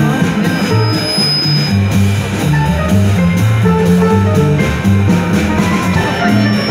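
Instrumental jazz on grand piano and pizzicato double bass, the bass stepping note by note through a low line under the piano.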